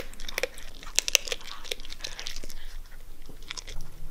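A dog crunching and chewing a hard treat stick, a quick run of sharp crunches that thins out after about two seconds.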